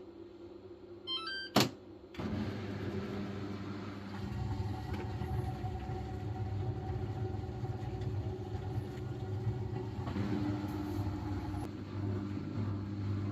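Samsung Series 5 washing machine starting a spin-only cycle: a quick run of rising electronic beeps and a sharp click, then the motor and drum start turning with a steady hum that grows louder about four seconds in.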